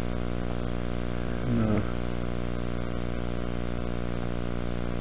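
A steady, unchanging hum made of many even tones. About one and a half seconds in there is a brief low voice-like sound.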